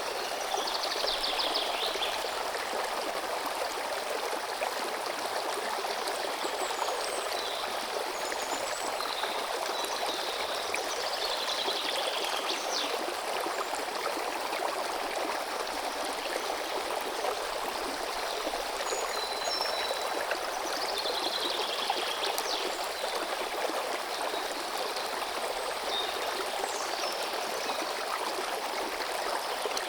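A stream of running water flowing steadily, with birds singing in short phrases every few seconds over it.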